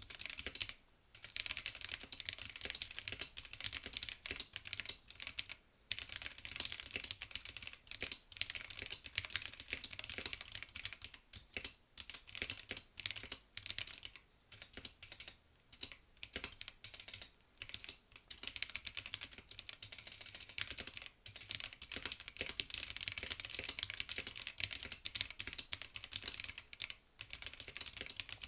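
Acrylic-case Womier K87 mechanical keyboard with red switches being typed on: a quick, uneven run of keystroke clacks, broken by a few brief pauses.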